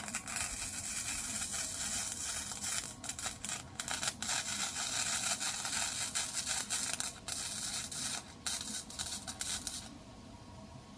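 Electric arc welder laying a bead on the broken steel handle of a lawnmower: a steady crackling sizzle of the arc, broken by a few brief stops, that cuts off near the end.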